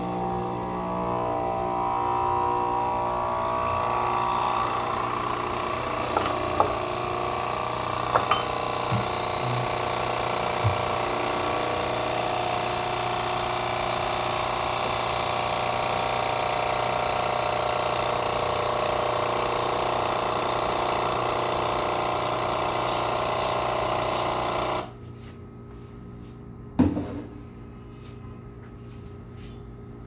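Turmix Nespresso capsule machine's vibration pump buzzing steadily as it pushes descaling solution through the machine, then stopping abruptly near the end, with a single knock a couple of seconds later.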